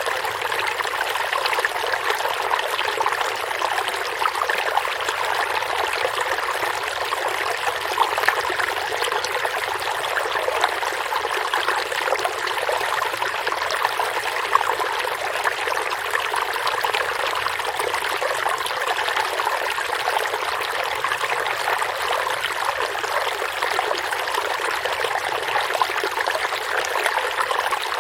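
Stream water running steadily over rocks, a continuous rushing and trickling with small splashes.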